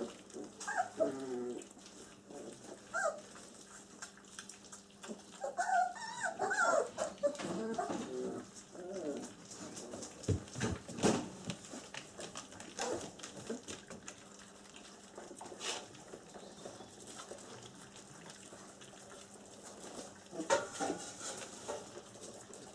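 Twenty-day-old German Shepherd puppies whimpering and squeaking in short wavering cries while they feed from a shared bowl, in several bouts, the longest from about five to nine seconds in. Scattered sharp clicks and knocks fall between the cries.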